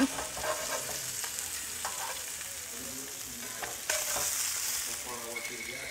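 Sheepshead fillets sizzling in butter in a cast-iron skillet, with a slotted metal fish spatula scraping across the pan to slide under a fillet. The sizzle gets louder for about a second around four seconds in as a fillet is lifted.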